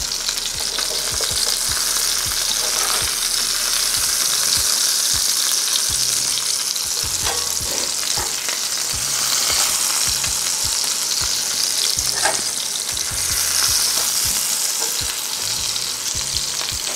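Ground-beef hamburger steaks searing in hot rendered fat in a skillet over medium-high heat. There is a steady frying sizzle with scattered sharp pops and spatters.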